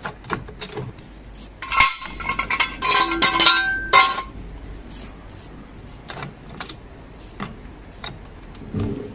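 Steel jack stand clanking and ringing as it is pulled out from under the car and set down. Several metal-on-metal knocks about two to four seconds in are each followed by a ringing tone, with lighter clicks before and after.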